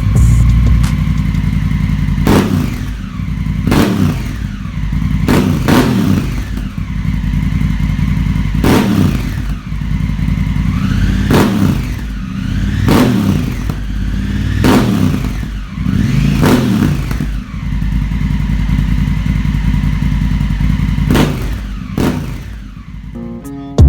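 A Honda Africa Twin's parallel-twin engine idling through an aftermarket exhaust and blipped on the throttle about ten times. Each rev rises sharply and drops straight back to idle, with a longer steady idle near the end.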